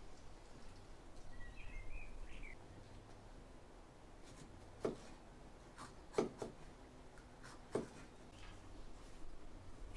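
A kitchen knife slicing a green bell pepper on a wooden chopping board: a few soft, irregular knocks of the blade on the wood in the second half. A bird chirps briefly about one and a half seconds in.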